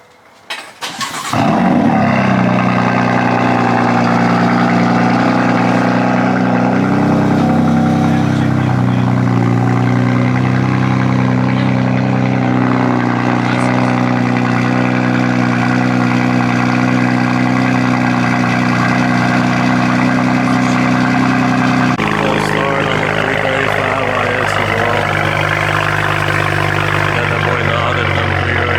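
Car engine started about a second in, then running at a steady fast idle that wavers a little in pitch. The sound changes abruptly near the end.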